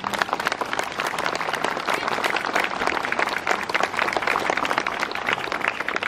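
Audience applauding with dense, irregular clapping.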